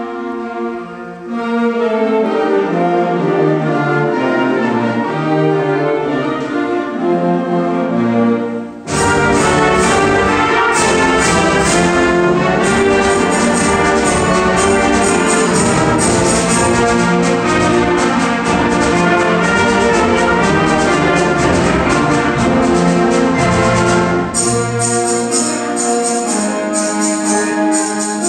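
Middle school concert band of winds, brass and percussion playing: a softer passage of held notes, then about nine seconds in the full band comes in loud with percussion strokes, and near the end the percussion thins out.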